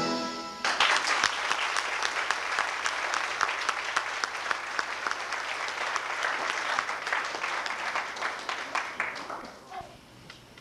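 The music's final chord ends less than a second in, then an audience breaks into dense, steady clapping that dies away near the end.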